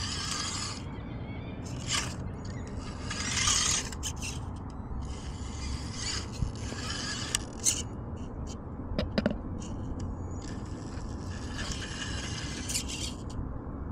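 Micro RC rock crawler's small electric motor and gears whirring in several spurts as it climbs over rock. Its tyres and chassis click and scrape on the stone, with a cluster of sharp knocks about halfway through.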